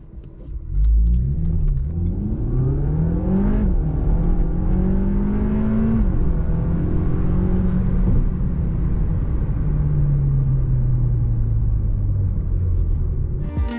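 Stage 3 tuned Volkswagen Golf GTE's turbocharged 1.4-litre four-cylinder at full throttle from a standstill, heard from inside the cabin. The engine note climbs, drops sharply at two quick DSG upshifts about three and a half and six seconds in, then eases off and falls slowly as the car slows.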